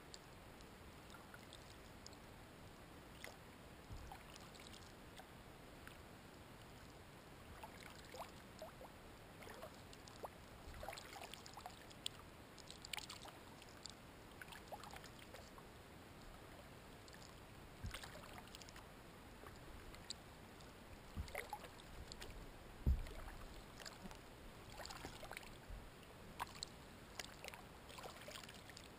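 Kayak paddle strokes in calm water: faint, irregular splashes and drips from the paddle blades. One louder thump about two-thirds of the way through.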